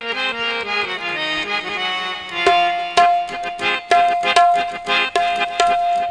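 Harmonium playing a melodic qawwali introduction. About two and a half seconds in, tabla joins with quick strokes, the right-hand drum ringing on one steady note.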